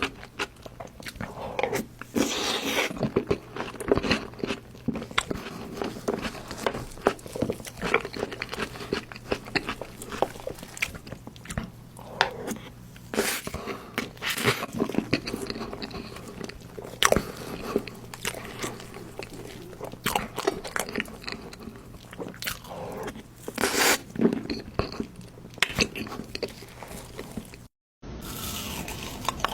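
A person eating cake close to the microphone: bite after bite and steady chewing in quick irregular succession. It cuts out briefly near the end, then resumes.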